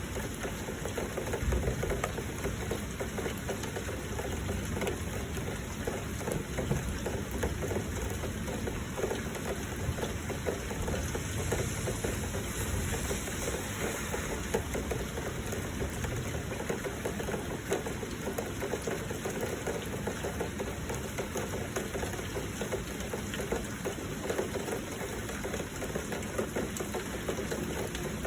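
Heavy rain falling: a steady, dense patter over a low rumble.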